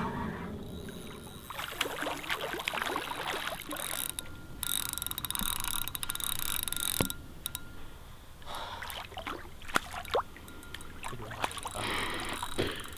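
Spinning fishing reel working under the pull of a hooked wels catfish, a fast run of ticking with a faint whine under it. It comes in spells with short gaps, the longest run a few seconds from the start.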